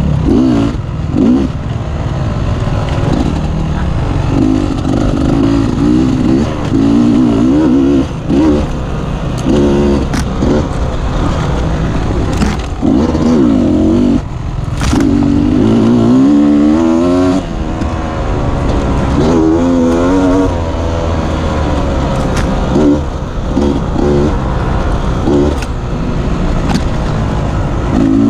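Beta 250 RR enduro motorcycle engine revving up and down as the throttle is repeatedly opened and closed on a rough trail. A few sharp knocks sound about halfway through.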